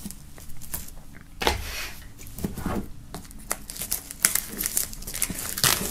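Plastic shrink-wrap film being peeled and torn off a cardboard box, crinkling and crackling in irregular bursts.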